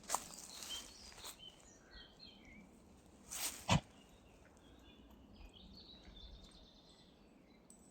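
Woodland birdsong: scattered short chirps and trills over a faint steady background. Two brief rustling noises, one at the start and a louder one about three and a half seconds in that ends in a sharp click.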